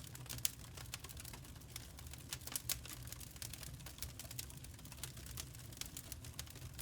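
Wood fire crackling: irregular sharp pops and snaps of varying strength over a steady low rumble.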